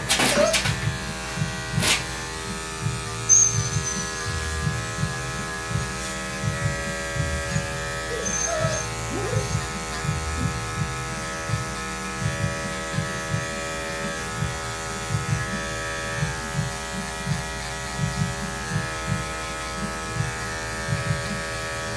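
Corded electric dog grooming clippers running steadily with a constant hum as they cut through matted fur on a dog's front leg, with irregular low thuds beneath.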